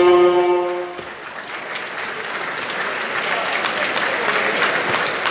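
A timekeeper's horn sounds one steady, even tone and cuts off about a second in. Crowd applause and cheering follow and build.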